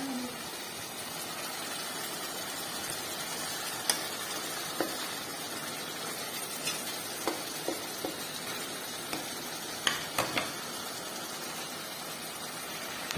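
Chopped tomatoes and onions sizzling steadily in a pot on the stove. A wooden spatula stirs them, knocking against the pot in a handful of short clicks in the middle of the stretch.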